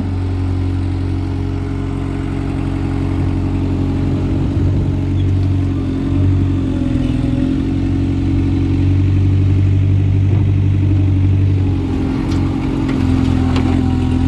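Skid steer engine running at working revs, its pitch dipping and rising a little as the machine works.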